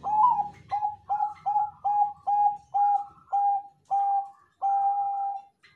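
Zebra dove of the Bangkok perkutut line singing its cooing song: a string of about ten short, clipped coos at roughly two a second, ending on one longer held coo.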